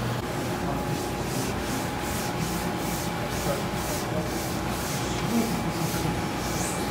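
A hand rubbing and smoothing a sheet of ramen dough as it winds onto the roller of a noodle-sheeting machine: short, quick swishes about three times a second. The machine's steady faint hum runs underneath.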